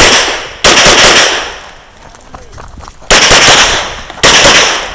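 Semi-automatic pistol shots fired in rapid succession, loud enough to clip the microphone. One pair comes in the first second and another about three seconds in, with a short pause between the pairs.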